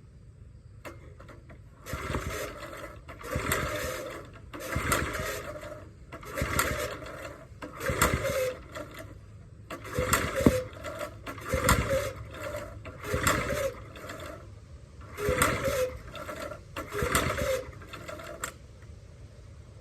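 The log splitter's small gasoline engine being pull-started over and over, about ten pulls of the recoil starter, each a short cranking rattle, none catching: a warm engine that won't restart.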